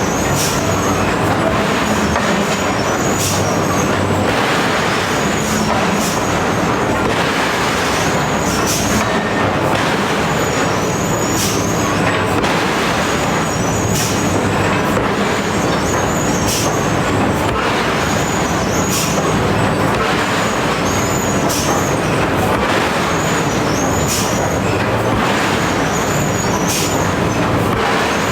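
Machine-driven hammering of iron: a steady loud machinery drone with a sharp metallic strike about every one to two seconds.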